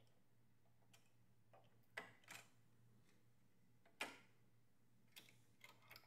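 A few faint metallic clicks, the clearest about two and four seconds in, as a CPU is seated in the motherboard socket and its metal load plate and retention lever are handled.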